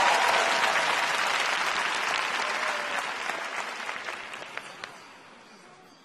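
Arena crowd applauding, the applause fading away steadily over about five seconds, with a few scattered last claps near the end.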